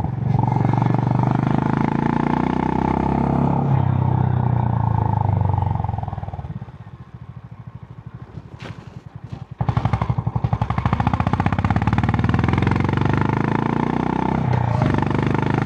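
Honda CB350 H'ness's single-cylinder engine through its stock exhaust, heard while riding. The pitch falls as the bike slows. About six seconds in it drops to a quiet low thumping. Some three seconds later it comes back loud and climbs in pitch as the throttle opens again, with a brief dip near the end.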